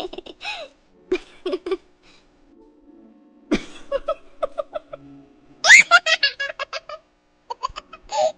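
A high-pitched voice giggling in several short runs of quick laughs, with brief pauses between them.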